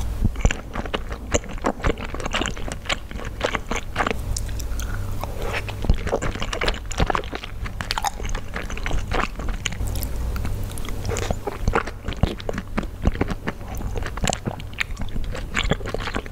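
Close-miked ASMR eating: wet chewing, biting and lip smacking of xiaolongbao soup dumplings, with many quick sharp mouth clicks.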